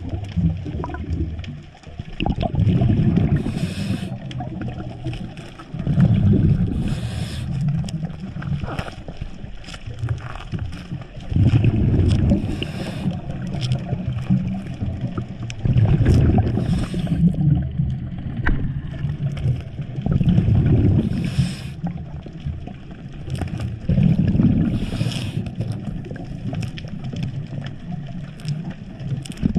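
A diver's breathing heard underwater: a rushing burble of exhaled bubbles about every four to five seconds, each with a short hiss, over the steady wash of the water.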